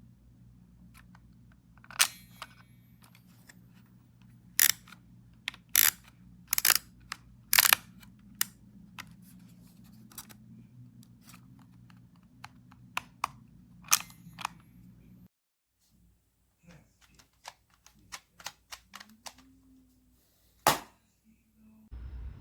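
Kodak Ektar H35 half-frame plastic film camera being handled: a run of sharp plastic clicks, several loud among many lighter ticks, irregularly spaced.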